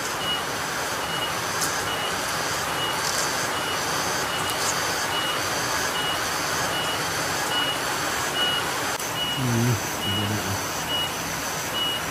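Cicadas calling in a steady pulsing rhythm, about two short pulses a second, over the even hiss of heavy rain.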